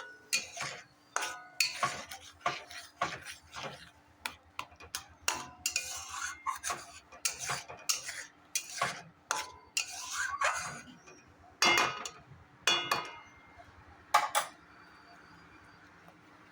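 A spoon scraping and knocking against a cooking pan in irregular strokes while stirring mango chutney with jaggery, stopping a couple of seconds before the end.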